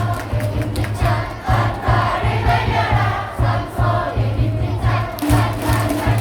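Stadium crowd of baseball fans singing a cheer song together in unison with their own voices, over a steady low rhythmic beat.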